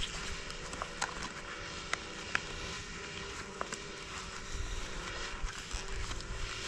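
A few light, irregular clicks and taps as a knife and small kit are handled in the hands, over a faint steady outdoor background.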